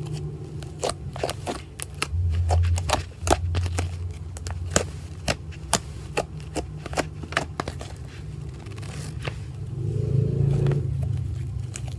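White fluffy slime being squeezed and stretched by hand, giving an irregular run of sharp clicks and pops as air pockets trapped in it burst. A low steady hum sits underneath and swells briefly near the end.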